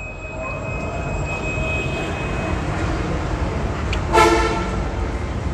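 Steady low rumble of background noise, with one short horn toot about four seconds in.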